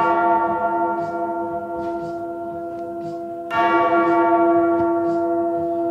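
A bell struck twice, about three and a half seconds apart, each stroke ringing with many overtones and fading slowly.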